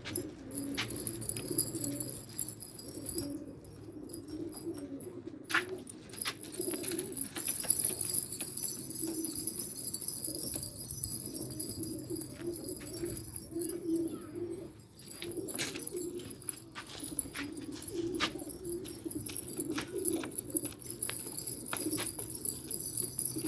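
Domestic pigeons cooing over and over in low, throaty coos, with scattered sharp clicks.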